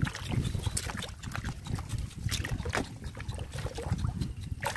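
Hands groping through shallow muddy water, feeling in the mud for fish, with irregular wet squelches, sloshes and small splashes.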